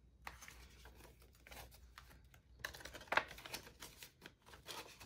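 Faint rustling and crinkling of paper banknotes being handled and tucked into a plastic cash envelope in a ring binder, with the plastic envelope pages being turned. The rustle thickens about three seconds in.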